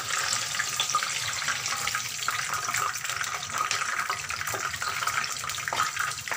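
Block of tofu frying in hot oil in a pan: a steady sizzle full of small crackles.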